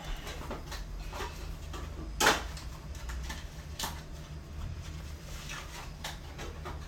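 Knocks and clicks of things being handled in a kitchen, the sharpest about two seconds in and a lighter one near the middle, over a low steady hum.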